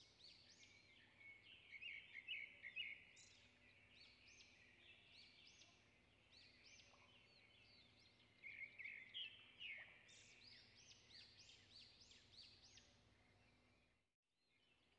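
Faint bird chirping: many quick rising-and-falling chirps in busy clusters, dropping out briefly near the end.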